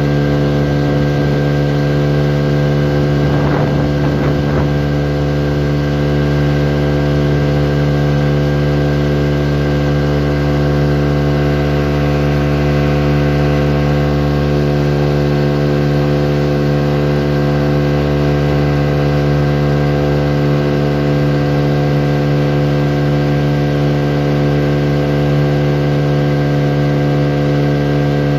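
A small motorboat's engine running steadily under way, holding one constant pitch without revving up or down.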